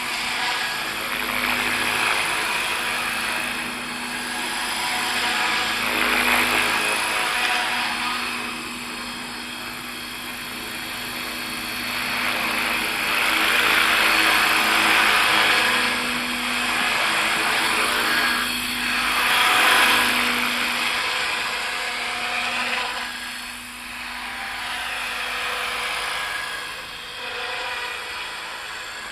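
ALZRC 505 radio-controlled helicopter in flight: a continuous whine of motor and rotor blades that swells and fades several times, its pitch sliding up and down as it manoeuvres.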